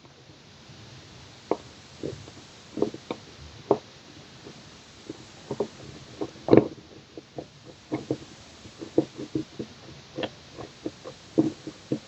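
Irregular small clicks and taps of a Sparrows disc detainer pick working in a Cordo bicycle lock's disc detainer core, turning discs and feeling for their positions. The clicks come more often in the second half.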